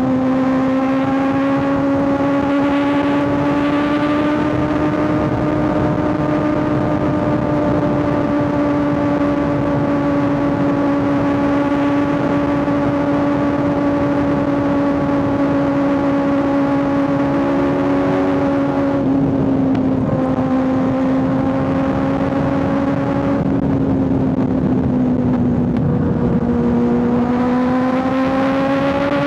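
Kawasaki ZX6R 636's inline-four engine cruising at a steady high rpm on the highway, its exhaust note holding nearly one pitch over constant wind noise. The throttle eases off briefly about two-thirds of the way through, and the revs dip and then climb again near the end.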